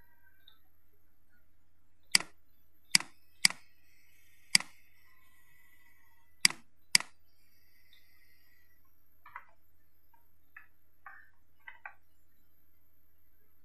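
Computer mouse button clicking: six sharp clicks in the first seven seconds, then a few fainter clicks near the end, over a low steady hum.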